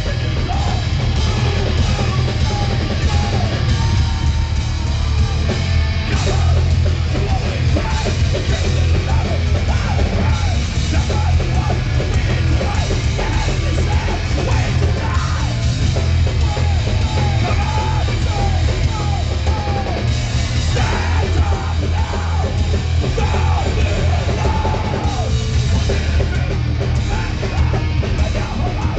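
New York hardcore band playing live: distorted electric guitar, bass and drums at a fast, loud pace with shouted vocals. The low end is heavy and booming.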